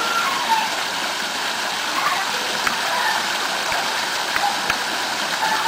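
Water pouring steadily down an artificial decorative-concrete waterfall into a pool: a constant splashing rush.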